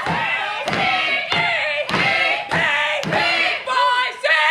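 Step dancers stomping and clapping in a steady beat, about one hit every 0.6 seconds, with many voices shouting over it.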